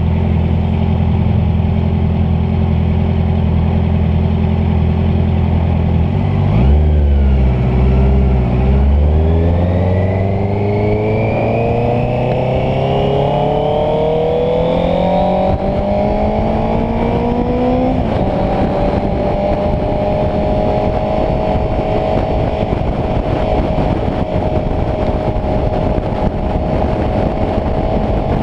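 Honda CBR650F inline-four engine running steadily, then dipping and revving up in a long rising pitch as the bike accelerates, shifting up past the halfway mark and settling into a steady cruise. Wind rushes over the microphone underneath.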